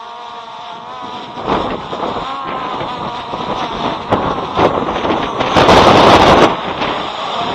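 Strong gusty wind buffeting the microphone in rough bursts, with the loudest gust about six seconds in. Under it runs the faint whine of a small drone's propellers.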